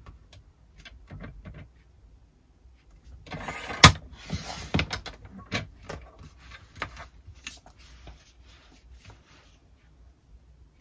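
Objects being handled at close range: a short scraping rustle with one sharp snap about four seconds in, then a run of light clicks and taps that thin out.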